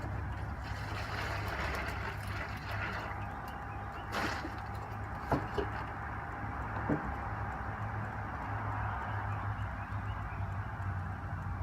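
Small electric fan of a homemade styrofoam-cooler air conditioner running steadily with a low hum and a faint whine, with a brief rustle about four seconds in and a few light clicks and knocks soon after.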